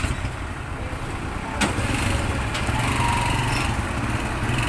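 Military cargo truck's engine running with a steady low rumble as the truck rolls slowly along. There is one sharp click about a second and a half in.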